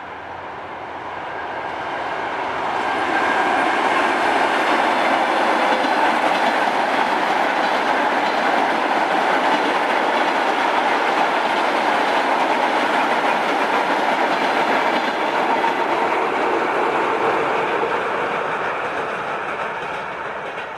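A train passing close by. The sound swells over the first few seconds, holds steady and loud, then eases off near the end as the train goes by.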